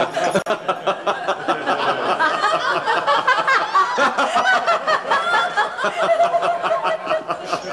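A group of people laughing together loudly and without a break, women's laughter to the fore: mocking laughter at the answer just given.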